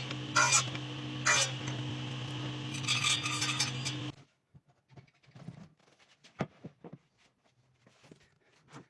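Clinks and scrapes, like metal on dishes, over a steady hum that cuts off suddenly about four seconds in. Then a few faint scattered clicks.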